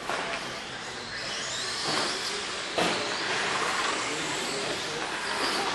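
Radio-controlled short-course race trucks running on a dirt track: a high motor whine rising and falling as they accelerate and slow, over a steady rush of tyres on dirt, with one sharp knock about three seconds in.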